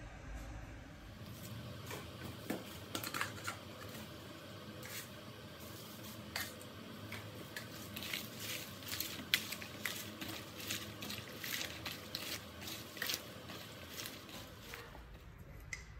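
Hands tossing and rubbing salted, cut water spinach stems in a plastic bowl: an irregular crackle and rustle of the stems, busier in the second half.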